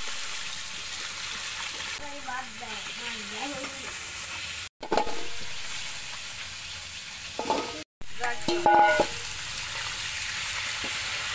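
Tap water running into a steel bowl while hands rub and rinse cauliflower and potato pieces: a steady splashing hiss, broken twice by short gaps. About three quarters of the way through there is a brief louder clatter.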